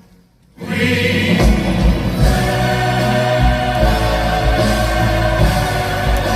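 A musical theatre cast and ensemble singing in full chorus over a loud orchestral backing with a heavy low beat. The music comes in after a brief half-second pause at the start.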